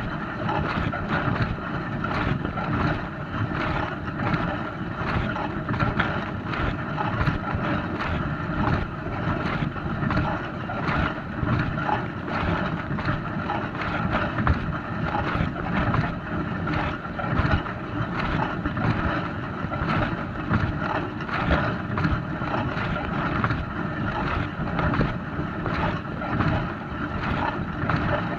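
Dishwasher running mid-cycle: a steady, unbroken churning of water inside the machine, with a rapidly fluctuating texture over a constant running sound.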